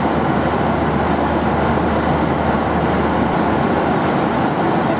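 Steady rushing noise of a Boeing 737-800 in cruise at 38,000 ft, heard from inside the aircraft: airflow and engine noise, with a low hum that eases off about three seconds in.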